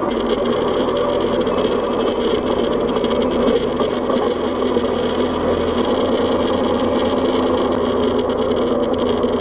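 Tractor engine running steadily at a constant speed, a continuous mechanical drone with a vibrating, buzzy edge.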